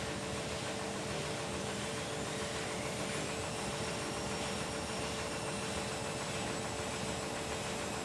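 Washing machines on a spin cycle: a steady motor and drum hum, with a high whine that rises in pitch from about two seconds in and then holds steady as the spin speeds up.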